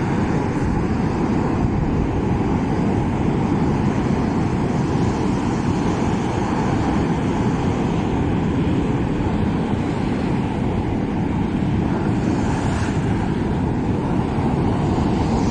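Steady low rumble of ocean surf breaking on a rocky reef, mixed with wind buffeting the microphone.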